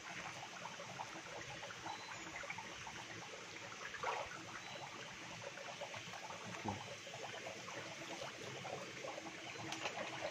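Steady trickle and splash of water falling into a hatchery tank, with a couple of faint knocks about four and seven seconds in.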